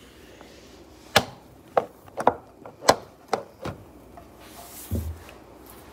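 Irregular sharp knocks of kitchen utensils against a hard surface, about seven over two or three seconds, two of them close together, followed by a dull low thump near the end.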